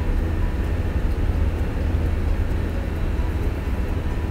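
Wooden rolling pin rolling over thin dough on a hard worktop, making a steady low rumble.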